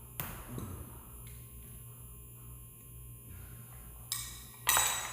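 Hammer striking a chisel to cut a shallow recess in wood: three sharp ringing strikes, one right at the start and two near the end, the last the loudest.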